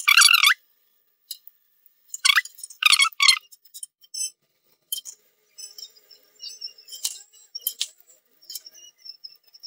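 Metal spatula scraping and clinking on a flat non-stick tawa as an aloo paratha is pressed and turned. Several sharp, squeaky scrapes come in the first three and a half seconds, then lighter scattered clicks.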